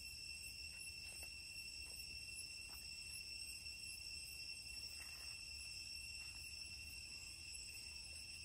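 Insects droning steadily: one unbroken high-pitched tone with overtones. A few faint soft ticks and rustles come and go.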